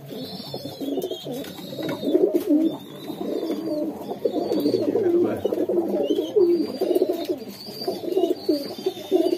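Several domestic pigeons cooing together in a loft, a dense, continuous burbling, with short high chirps scattered over it.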